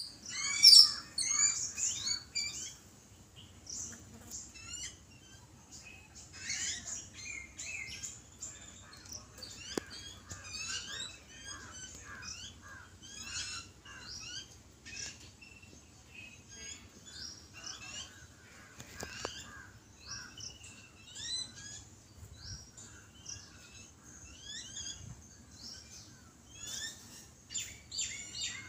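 A group of babblers calling: a continuous chatter of short, quick chirps in rapid runs, loudest in the first second or so.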